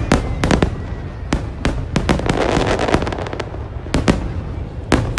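Fireworks display: repeated sharp bangs from bursting aerial shells, with a dense rapid crackling about two seconds in, over a continuous low rumble.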